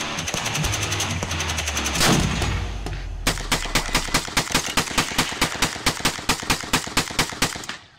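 Rapid gunfire: a dense, fast rattle of shots for the first three seconds, then a rifle firing evenly spaced shots about three a second, which stop shortly before the end.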